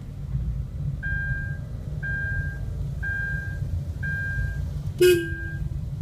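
A car's electronic warning beep sounds about once a second as a steady mid-high tone, over the engine and road rumble heard from inside the cabin. About five seconds in comes one short, loud toot of the car horn, sounded before a blind curve on a narrow forest road.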